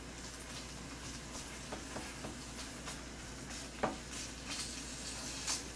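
Pork belly sizzling faintly on a griddle while it is turned with tongs, with a few light clicks and scrapes of the tongs on the pan, the sharpest a little under four seconds in.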